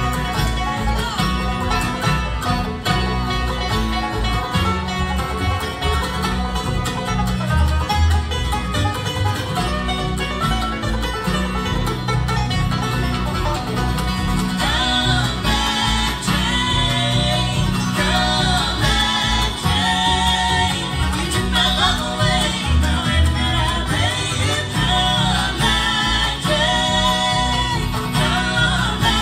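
Live bluegrass band playing: banjo, acoustic guitar, mandolin, fiddle and upright bass, with a steady bass line throughout. A brighter lead part with bending pitches comes in about halfway through.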